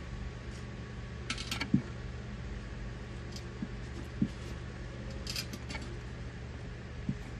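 Light handling noises from fitting the water supply hose onto a toilet fill valve: a couple of brief scrapes and a few soft knocks over a low steady hum.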